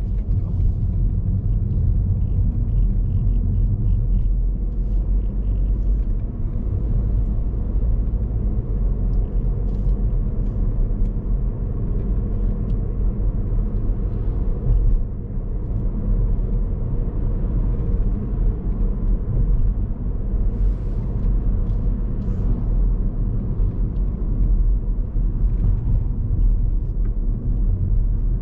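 Car on the move heard from inside the cabin: a steady low rumble of engine and road noise.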